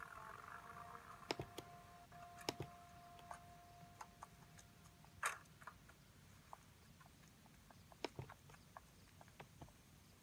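Near silence: a faint steady tone for about the first half, with a few faint sharp clicks scattered through it.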